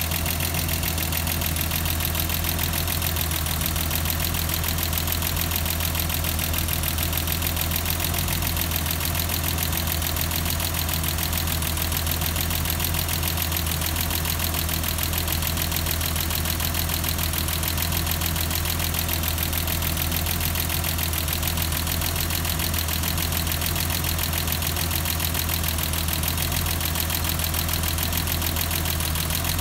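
1989 BMW 325i's M20B25 inline-six idling steadily.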